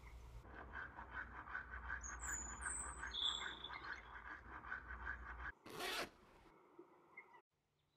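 Toothbrush scrubbing teeth in quick back-and-forth strokes, then one short zip of a hoodie zipper about six seconds in.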